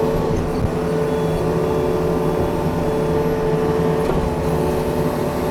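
Yanmar diesel engine of a digging machine running steadily under light throttle, with a brief click about four seconds in.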